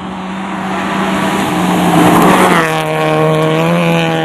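Rally car at high revs coming past on a loose gravel road, with engine and gravel noise building to a peak about halfway through. Its engine note then drops sharply as it passes and holds steady as it pulls away.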